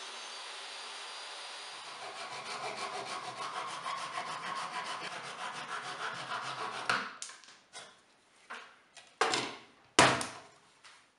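Steady motor noise at first, then a Japanese dozuki pull saw cutting a thin wood strip with quick, even rasping strokes that stop about seven seconds in. A few clicks and knocks follow as one-hand trigger clamps are worked, the loudest two near the end.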